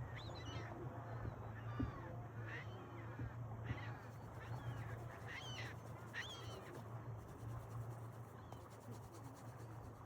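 Birds calling, about six short calls over the first seven seconds, some with a rising end, over a steady low hum.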